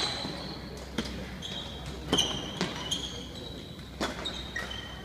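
Badminton rally: sharp racket strikes on the shuttlecock every second or so, with short high squeaks of sports shoes on the hall floor between the strikes.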